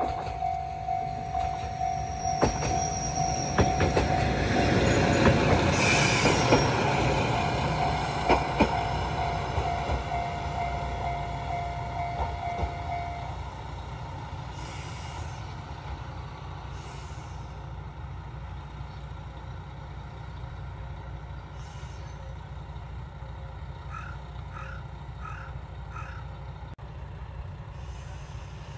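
Level-crossing alarm bell ringing about twice a second as a single-car diesel railcar passes over the crossing, louder as it goes by, with sharp clicks from its wheels over the rail joints. The bell stops about 13 seconds in, and the railcar's engine hums on more quietly as it draws away toward the station.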